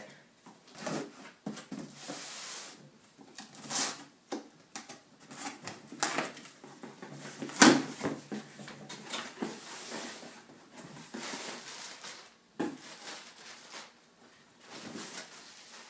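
Cardboard shipping box being opened by hand: flaps rubbing and scraping, with irregular rustles and knocks and one sharp knock about halfway through.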